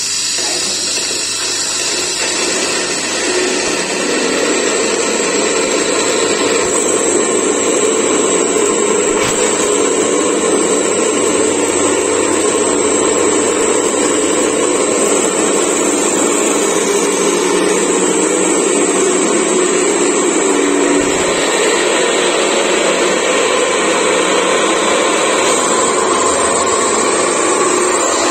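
Electric mini stone grinder (flour mill) running steadily, its 2.2 kW single-phase motor driving the grinding stone as it mills wheat into flour: a loud, even, continuous grinding noise.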